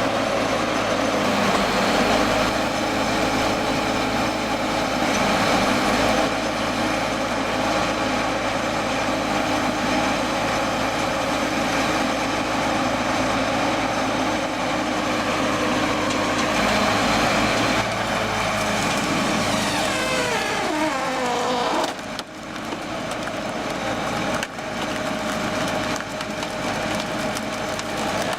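Large wood chipper running, its engine steady while it chips and shreds wood. About two-thirds of the way through the engine pitch falls for a couple of seconds, then the level dips briefly before the chipping carries on.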